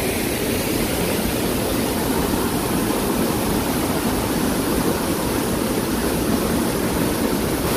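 Waterfall rushing: a steady, even roar of falling water that holds unchanged throughout.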